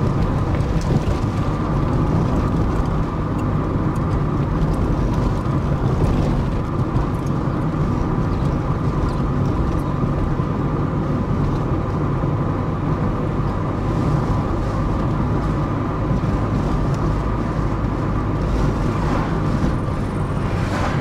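Steady road and engine noise of a car driving along at an even speed.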